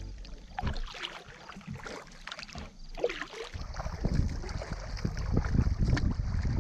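Kayak paddling: paddle blades dipping and splashing in the lake water in irregular strokes, getting louder about halfway through.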